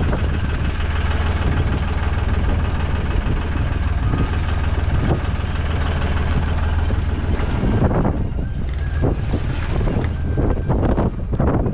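A fishing boat's engine idling steadily under wind noise on the microphone. In the last few seconds, uneven rushes of wind and water along the hull come to the fore.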